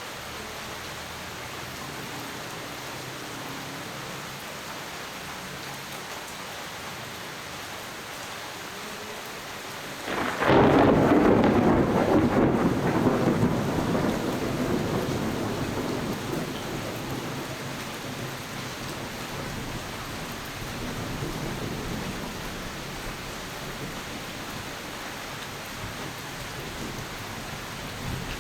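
Steady rain falling, with a loud clap of thunder breaking about ten seconds in and rumbling as it slowly dies away over the next ten seconds.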